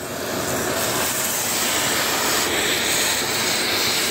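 Vacuum cleaner running steadily, its hose nozzle sucking debris out of a terrace floor drain; the hiss rises over the first second, then holds steady.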